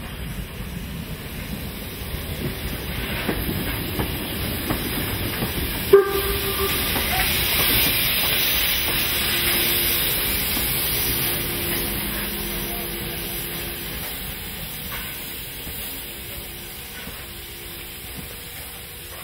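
Class 50 steam locomotive moving slowly with steam jetting from its cylinder drain cocks: a loud hiss that swells toward the middle and then fades. A single sharp clank about six seconds in.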